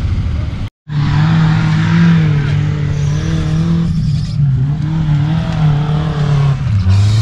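Off-road 4x4 engine revving hard under load, its pitch rising and falling as the throttle is worked. The sound drops out briefly under a second in.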